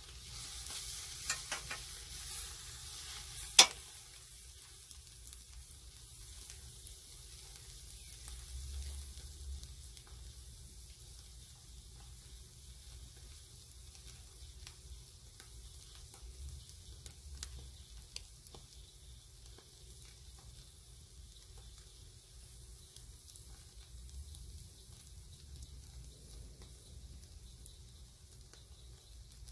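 Whole mullet sizzling on a grill grate over a live fire, a steady hiss with scattered small crackles. In the first few seconds, while metal tongs turn the fish, the sizzle is louder, and a single sharp click comes about three and a half seconds in.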